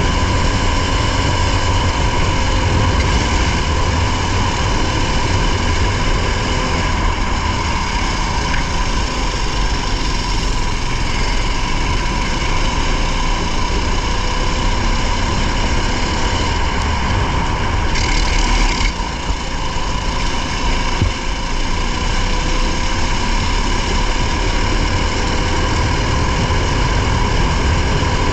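Racing car's engine running hard at high revs, heard from on board, fairly steady throughout, with a brief drop in level and a short hiss about eighteen seconds in.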